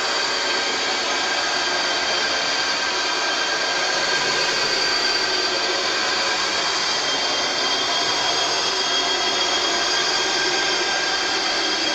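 A harsh, steady hissing drone with thin high whistling tones running through it, with one more whistle joining about halfway: a synthetic horror sound effect.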